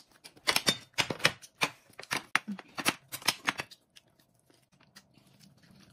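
Close-miked eating: about a dozen sharp, crisp crunches and smacks over some three seconds as crisp lettuce leaves and a braised duck leg are handled and bitten, then only faint sounds.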